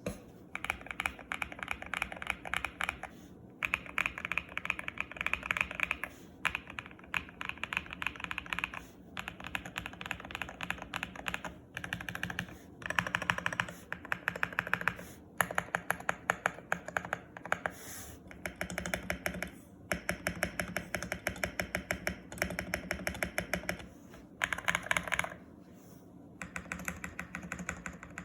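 Custom mechanical keyboard with lubed Akko Piano V3 switches and PBT double-shot keycaps in a GMK67 case being typed on quickly, in runs of rapid keystrokes broken by short pauses.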